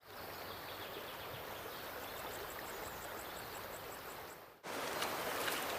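Steady rush of flowing water, with a high, rapid run of short notes, about five a second, partway through. It cuts off suddenly near the end and gives way to a slightly louder water sound with a few clicks.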